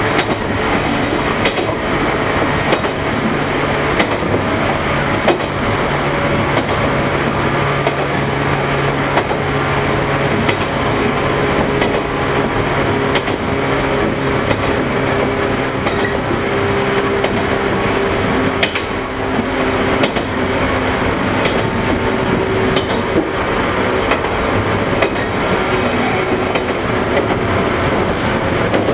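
JR 115-series electric motor car running, its MT54 traction motors growling with a steady hum over the rumble of the wheels on the rails.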